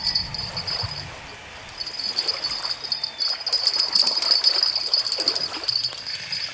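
A hooked carp splashing and thrashing in shallow water at the bank as it is played in on a rod, with irregular sloshing and splashes.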